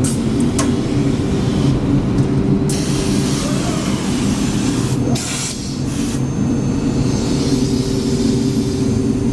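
Holz-Her ECO-MASTER CNC router running, its profile cutter milling the edge of 18 mm birch plywood, with a radius on top and a chamfer underneath in one pass. A steady machine drone runs throughout, with a rushing cutting hiss that comes and goes in stretches.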